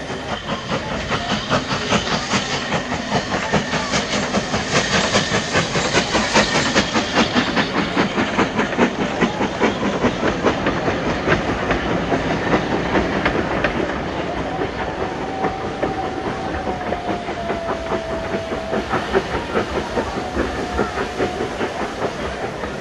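Model train running on the track, its wheels clicking rapidly and regularly over the rail joints, louder for the first half and easing off after the middle.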